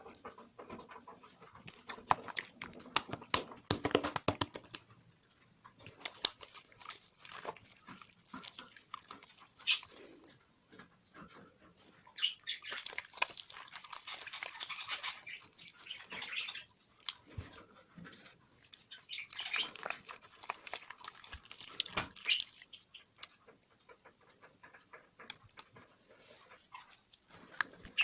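Sticky slime being mixed and squeezed by hand, making wet squelching with many small clicks and crackles that come in bouts.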